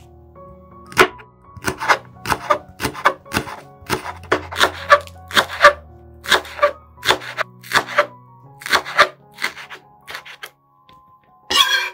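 Chef's knife chopping ginger and spring onion on a hard cutting surface: crisp knife strikes, about two a second, over soft background music.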